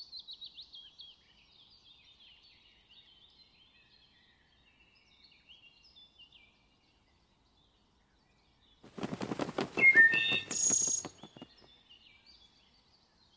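Northern cardinal song: a quick series of down-slurred whistles, then softer scattered chips. About nine seconds in comes a louder two-second burst of rapid pulses with a few high whistles.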